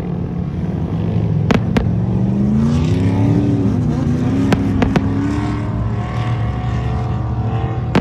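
Steady low rumble like a running engine, its pitch rising and falling midway, with sharp firecracker bangs: two about a second and a half in and two more near the middle.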